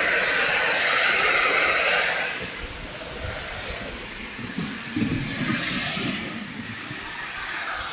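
Wind rushing and buffeting over the microphone of a folding bicycle in motion. It is loudest over the first two seconds, eases, then swells again for a moment around six seconds in.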